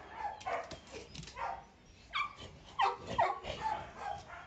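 Dogs giving a string of short, high-pitched yelps and barks, about six in four seconds.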